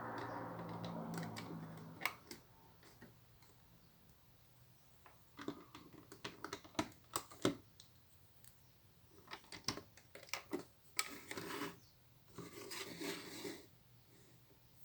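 Plastic Lego pieces clicking and clattering as they are handled and pressed together: a rustle for the first two seconds, then scattered sharp clicks and a few short clattering runs.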